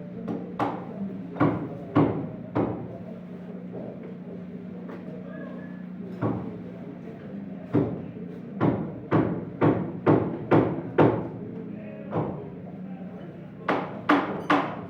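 Hammer blows on wood: scattered knocks at first, then a run of about two strikes a second past the middle and a quicker run near the end. A steady low hum lies underneath.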